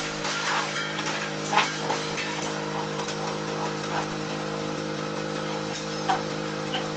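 Industrial drum wood chipper and its steel-plate infeed conveyor running with a steady mechanical hum, broken by a few sharp knocks, the loudest about one and a half seconds in and another about six seconds in.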